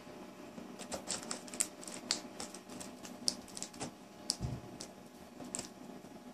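Knife blade slitting a cardboard box open: irregular small clicks and scratches, with a soft thump about four and a half seconds in.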